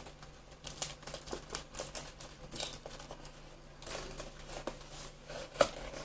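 A parcel being opened by hand: packaging rustling and crinkling, with scattered small clicks and taps and a few louder tearing or scraping noises.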